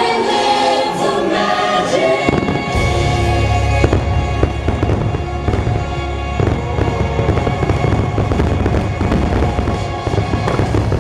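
A dense barrage of fireworks: many shells bursting in rapid succession with crackles and a deep low rumble, starting about two seconds in. It plays over choral show music, which is loudest in the first two seconds.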